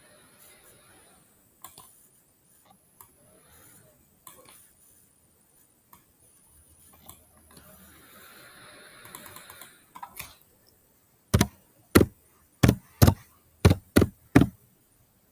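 Computer keyboard keys typed one at a time, seven sharp, loud taps about half a second apart as a word is typed, after a few faint clicks earlier.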